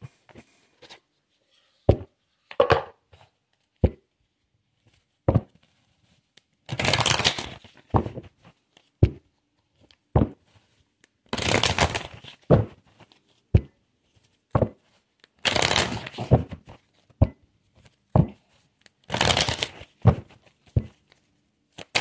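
A deck of oracle cards being shuffled by hand: scattered sharp taps and clicks, with four longer rustling shuffles of about a second each.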